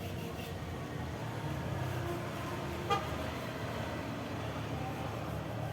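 An engine running steadily with a low rumble, and one short horn toot about three seconds in.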